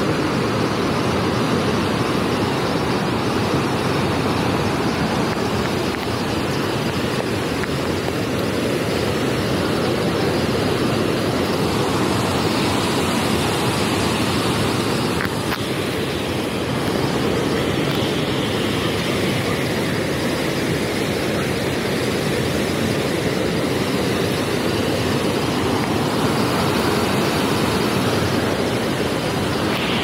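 Steady rush of a fast mountain river's white water tumbling over boulders.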